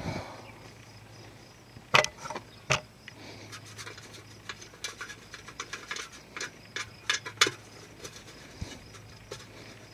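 Metal clicks and ticks of a nut being turned down by hand on the air cleaner's centre stud, clamping a full moon hubcap used as the air cleaner lid. Two sharper clicks come about two seconds in, then a run of small irregular ticks.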